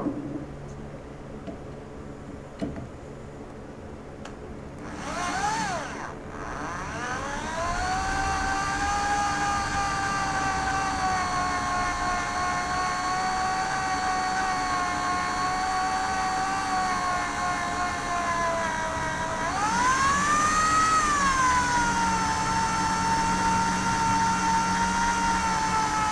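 Handheld electric drill spinning up about five seconds in, then running with a steady whine as its bit bores a 1/8-inch hole through the steel knife tang. Its pitch rises and falls back once, about twenty seconds in.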